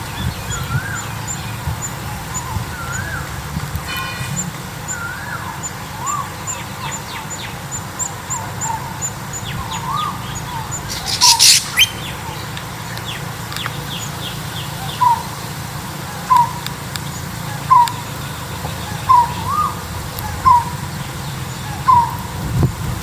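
Birds calling outdoors. Short whistled notes come first, then, about halfway through, one short note repeated evenly about every second and a half. A brief, loud, high, scratchy chirping burst comes a little before the middle, over faint high-pitched ticking and a low rumble.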